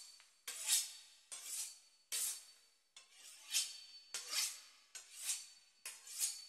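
A knife sawing back and forth through the pastry crust of a beef Wellington: soft rasping strokes, a little under one a second.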